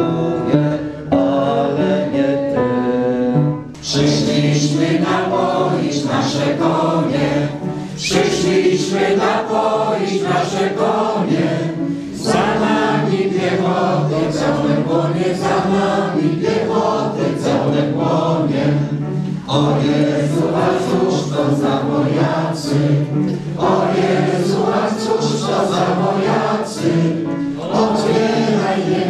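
A crowd of men and women singing a Polish patriotic song together to piano accompaniment, with a brief break about four seconds in.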